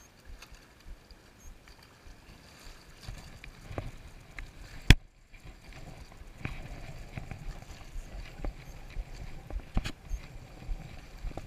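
Small waves lapping and slapping against a concrete seawall, with scattered light knocks and clicks. A single sharp click comes about five seconds in, followed by a brief moment of near silence.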